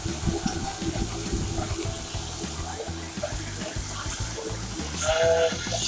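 Water running in a commercial kitchen sink while pots are washed, over background music with a steady beat.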